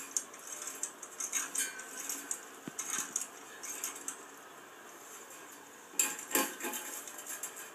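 Plain steel fence wires clinking and rattling against each other and their metal fittings as they are straightened out by hand, with a louder clatter about six seconds in.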